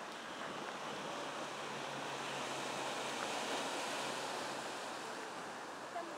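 Ocean surf washing over rocks below, a steady rush that swells to its loudest midway and then eases.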